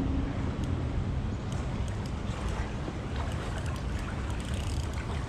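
Steady low rumble of wind on the microphone mixed with flowing creek water, with a few faint scattered ticks.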